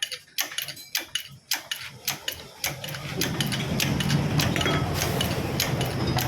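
Sharp clicks a few times a second, as of a ratchet wrench being worked. About three seconds in, a motor-driven tool starts and runs steadily with a fast rattling clatter.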